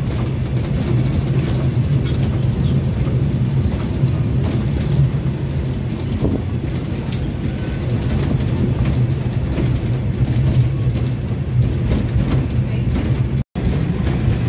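Toy train running along its track, heard from inside a carriage: a steady low drone of the train with rolling noise. It cuts out for an instant about a second before the end.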